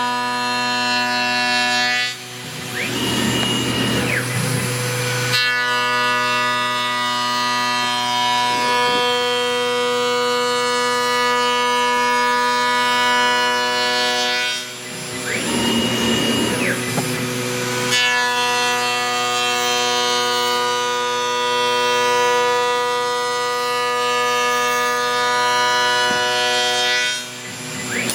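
A CNC router runs a toolpath: a steady whine of many pitches at once from the spindle and the stepper-driven axes. Three times, about every twelve seconds, it dips briefly while a high tone sweeps up, holds and sweeps back down.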